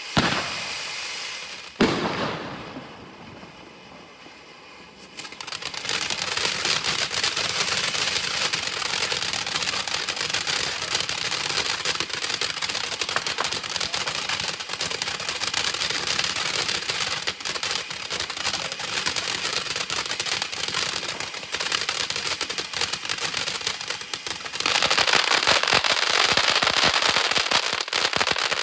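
Big Snow Cone firework fountain: a pop, a sharp crack about two seconds in, then from about five seconds a dense, continuous crackling spray that gets louder near the end.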